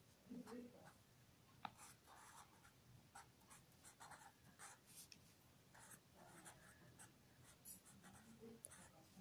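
Faint scratching of a marker pen writing on notebook paper, in short irregular strokes, with one sharp tick about one and a half seconds in.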